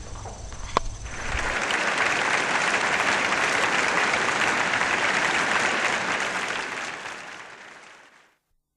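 Applause, starting about a second in as a dense, even clapping and fading out near the end.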